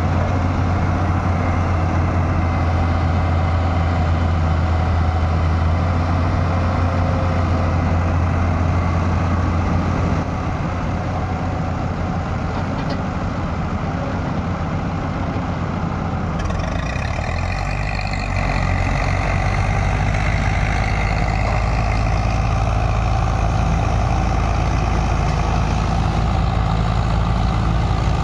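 Diesel engines of a Hyundai Robex 210 crawler excavator and a farm tractor running steadily while the excavator loads soil into the tractor's trolley. About two thirds of the way in the engine note shifts to a lower, different steady drone as the tractor pulls the loaded trolley away.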